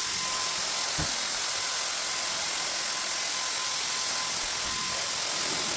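Corded handheld electric paint sprayer running steadily while spraying paint onto a wall: an even, loud hiss with a faint steady whine.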